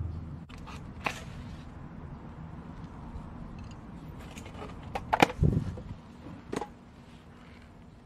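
Small fire of split kindling catching in a steel mini stove: a low steady hiss with a few sharp crackles and pops, about a second in, around five seconds and again near six and a half seconds.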